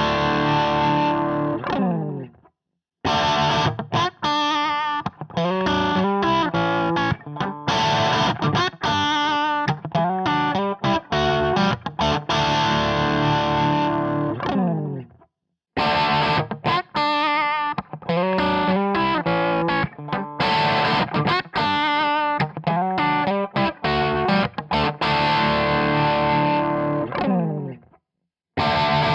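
Crunchy distorted electric guitar loop, from a Fender Stratocaster through a Marshall JCM800 Kemper profile and Celestion 2x12 cabinet impulse responses. The same riff repeats, cutting out for a moment a few seconds in, about halfway and near the end.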